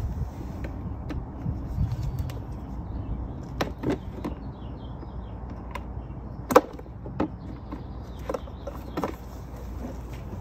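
Scattered clicks and knocks of a screwdriver and plastic clips against a car's plastic air filter housing as the cover clips are worked loose, the sharpest knock about six and a half seconds in, over a low steady background rumble.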